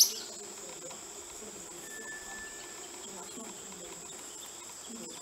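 Insects trilling in a steady, continuous high-pitched chorus. A single sharp tap right at the start, and a thin, steady whistle about two seconds in that lasts about half a second.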